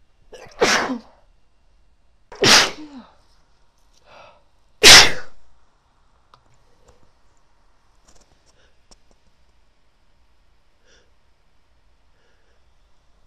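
A woman sneezing three times about two seconds apart, the third the loudest, her sneezes brought on by tickling her nose with a clothes tag. After the third, only faint small sounds.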